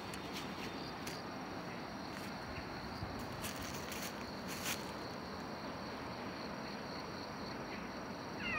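Steady high insect chirring from the undergrowth, with a few faint clicks and rustles. Near the end comes one short, falling high call.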